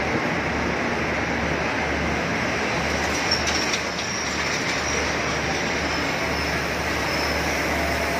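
Thai passenger train's coaches rolling along the platform, a steady rail rumble. There is a short sharp knock a little past three seconds in.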